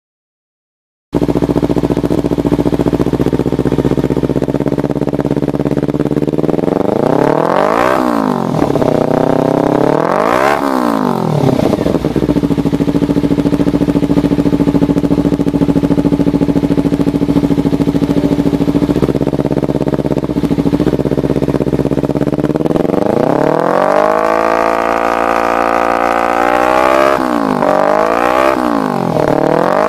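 Kawasaki Ninja 250 FI parallel-twin engine running through a LeoVince Cobra full exhaust system. It starts about a second in and idles, is blipped twice in quick up-and-down revs, then settles back to a steady run. Later it is revved up and held high, and it ends with a quick run of short blips.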